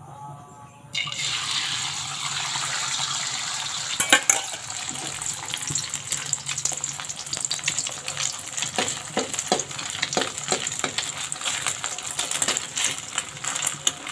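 Egg hits hot oil in a wok about a second in and fries with a steady sizzle and crackle, spitting throughout. A few sharp clicks come about four seconds in.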